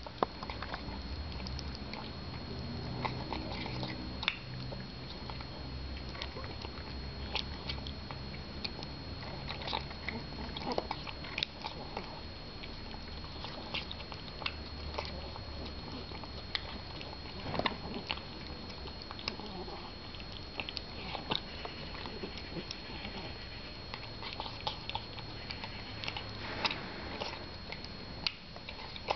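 Ginger cat eating food from a plastic bowl: rapid chewing and wet smacking with many irregular short clicks of jaws and tongue, continuing without a break.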